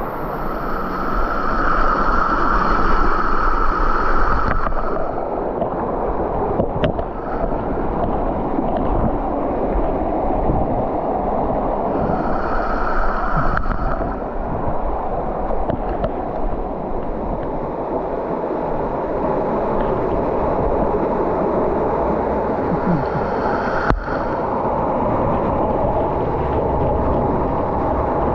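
Steady rushing of a mountain stream's water over rocks. A higher tone rises over it three times for a few seconds.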